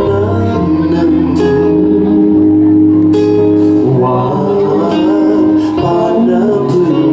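Live band music played through a PA: guitar and held notes with a singing voice, and drum hits at a steady beat.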